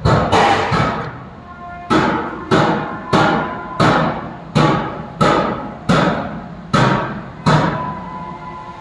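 Hammer blows on metal, about ten strikes in a steady rhythm of roughly one every two-thirds of a second after a short pause near the start, each leaving a ringing tone that fades.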